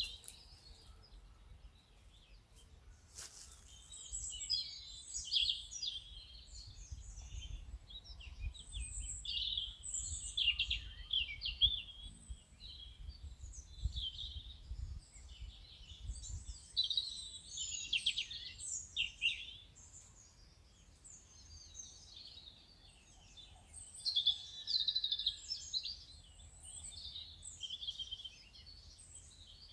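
Birds singing, many short chirping calls overlapping almost without pause, over a low background rumble that is heavier in the middle. A single sharp click comes about three seconds in.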